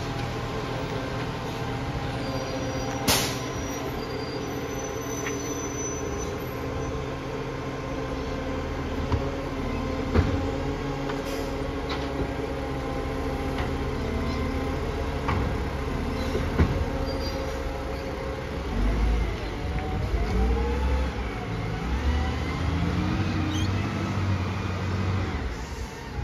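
Iveco side-loader garbage truck's diesel engine running steadily, with a short sharp burst about three seconds in and a few knocks. In the last several seconds the engine surges repeatedly while a whine rises and falls.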